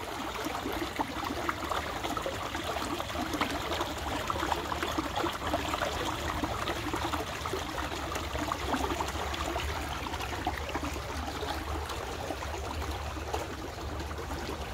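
Fast brook water rushing through a narrow brick-walled sluice channel at the floodgates, a steady rushing noise.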